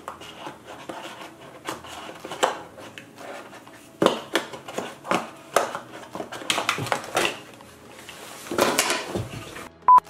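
Repeated clicks, knocks and scrapes of hard plastic hair-dryer attachments and the cardboard box tray being handled as someone struggles to get a nozzle out of the packaging. Right at the end a short, loud steady beep tone.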